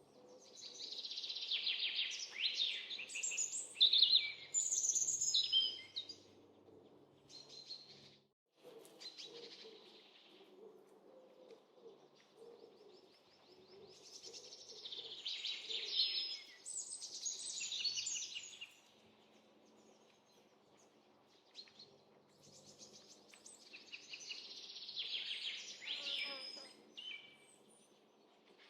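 Small birds chirping and singing in three lively bouts of rapid, high-pitched calls, with quieter pauses between them over faint outdoor background noise.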